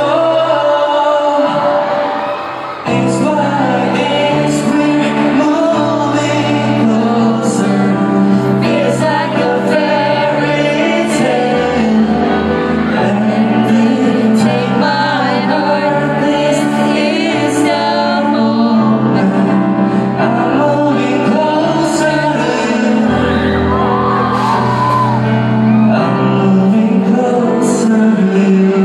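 K-pop concert performance: a male vocalist singing live into a handheld microphone over the band backing track, carried through a large venue's sound system with hall reverberation and steady cymbal beats. The music drops briefly about two seconds in, then comes back.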